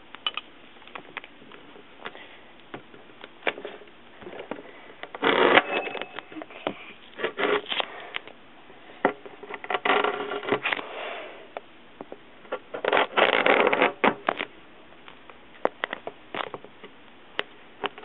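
Plastic shrink-wrap on a small product box being handled, crinkling and rustling in several bursts, with scattered taps and clicks from fingers on the box.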